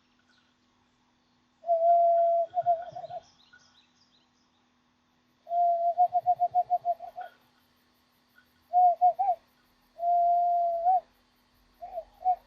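Hand whistle: air blown across the gap between two cupped hands, giving a hollow owl-like hoot on one pitch. It comes in a string of blows, some held steady and some fluttered into quick pulses of about six a second.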